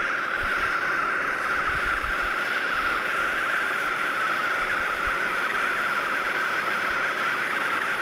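Handheld propane torch running, its flame jetting steadily against a block of aircrete with an even hiss.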